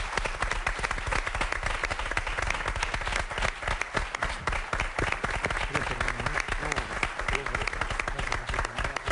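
Studio audience applauding, a dense, steady patter of many hands clapping.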